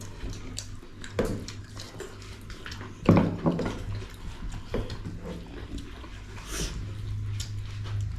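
People eating a meal of rice and pork broth: wet slurping and chewing sounds and scattered light clicks and knocks of dishes, the loudest about three seconds in, over a steady low hum.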